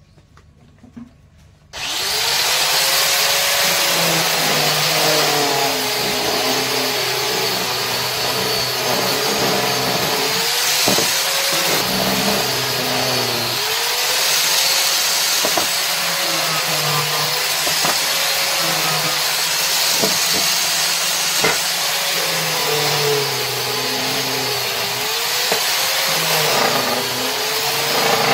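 Electric woodworking power tool switched on about two seconds in and cutting wood, its motor pitch sagging under load and recovering again and again, with a few sharp clicks along the way.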